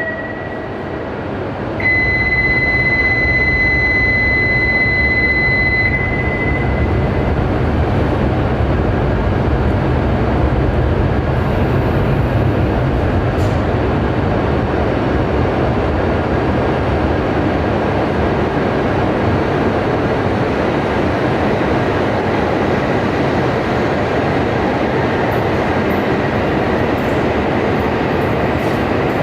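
Shinkansen bullet train moving along the platform, a steady rumble and rush of running noise. A couple of seconds in, a steady high electronic tone sounds for about four seconds.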